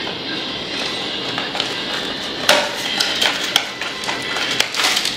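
Light clicks and taps of handling as a pair of sunglasses is taken out and handled, over a steady faint background hiss.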